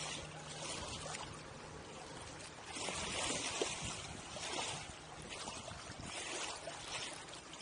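Water washing and splashing along the hull of a McVay Minuet sailboat under sail, coming in uneven surges.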